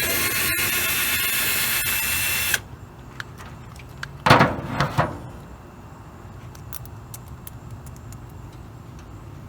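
Power drill-driver running steadily for about two and a half seconds, driving the screw that holds the horn's earth wire into the car body. About four seconds in there is a short clatter of knocks.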